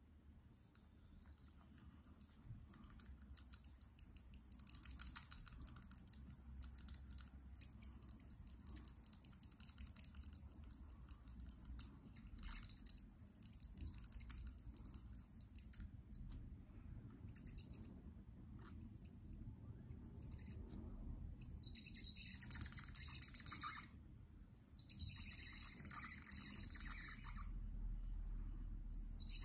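Copic alcohol marker's broad nib scratching over paper as it fills in a patch of colour, in short back-and-forth strokes. The scratching grows louder and busier near the end, with a break of about a second between two bursts.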